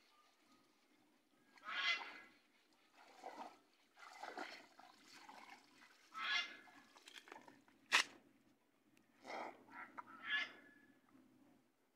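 Waterfowl honking in short, rough calls repeated about every two seconds, with a single sharp click about eight seconds in.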